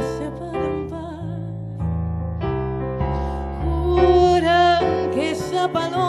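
A woman singing with vibrato over a piano accompaniment of sustained chords played on a keyboard piano, with a long, strong held note about four seconds in.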